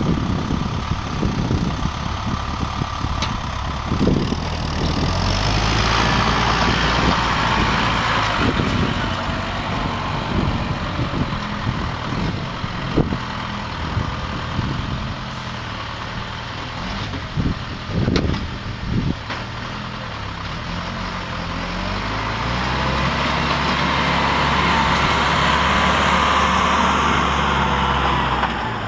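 Diesel engine of haying machinery running steadily, growing louder twice, with a few sharp knocks.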